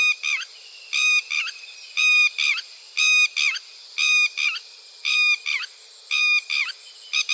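Red-wattled lapwing giving its loud alarm call, the 'did-he-do-it' phrase of several sharp, high notes, repeated about once a second.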